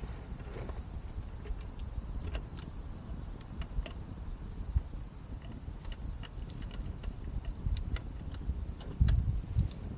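Campfire crackling with scattered sharp pops over a low rumble, and a dull thump about nine seconds in.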